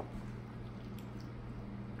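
Quiet room tone with a steady low electrical hum, and a faint click at the very start.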